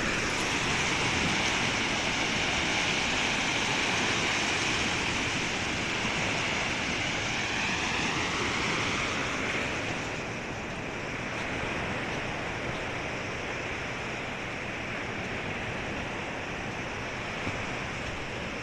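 Small lake waves washing onto a sandy shore: a steady rushing wash that eases a little about ten seconds in.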